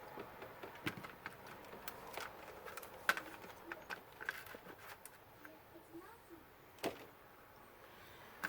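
Scattered light clicks and taps from handling on a repair bench, the sharpest about three seconds in and near seven seconds, over faint room noise.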